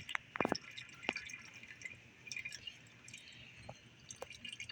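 A few light clicks and taps, the loudest about half a second in, from handling the oil filter and its rubber seal, over a faint steady dripping of old oil draining from the 1949 Farmall Cub's engine into a pan.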